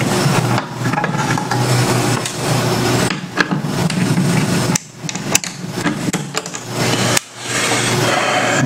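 A few small clicks and taps of a screwdriver taking screws out of a TV power-supply board and its metal chassis, over a loud, steady rushing background noise.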